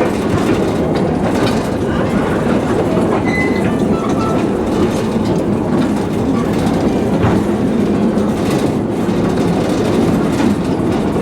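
A small train in motion, pulled by 0-4-0 locomotive #19: the steady rolling rumble and rattle of wheels on rails and the cars, with no let-up.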